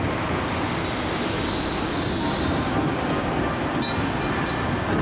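Vintage electric tram running along its track, with a steady rumble. Its wheels squeal briefly about a second and a half in, and a few sharp clicks come near the end.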